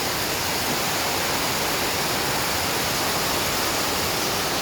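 Heavy rain pouring down in a sudden downpour: a loud, steady hiss.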